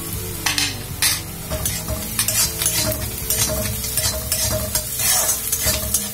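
Chopped onions frying and sizzling in oil in a metal kadai while a metal spatula scrapes and stirs them in repeated strokes, about one every half second to a second: the onions being fried toward golden brown.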